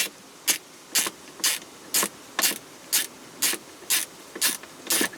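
Socket ratchet clicking at an even pace, about two clicks a second, while a small 9/32-inch nut is undone.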